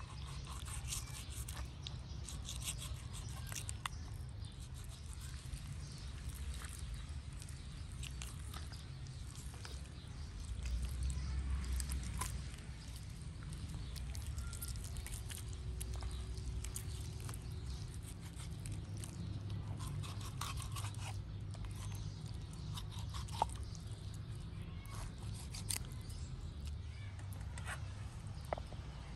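Kitchen knife cutting up a raw chicken on a wooden board: scattered short clicks and taps of the blade and the handling of the meat, over a steady low outdoor rumble.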